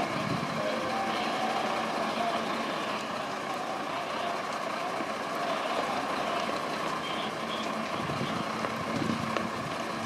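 Parked fire engines' engines running with a steady drone.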